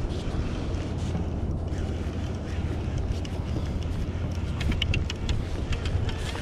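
Wind buffeting the microphone over open water, a steady low rumble and hiss, with a quick run of sharp clicks about five seconds in.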